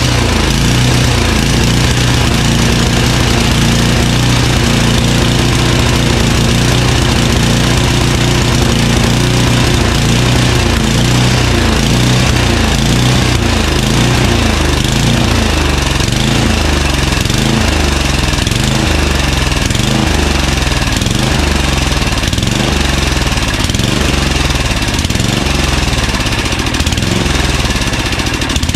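Tecumseh 9 hp single-cylinder snowblower engine running loud, steady at first, then from about ten seconds in its speed rising and falling roughly once a second: surging (hunting). The owner blames a dirty pilot jet in the carburetor.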